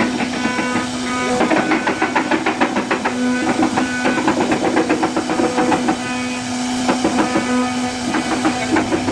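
CNC router spindle running with a steady whine while its bit cuts into wood, with a rapid crackling chatter from the cut.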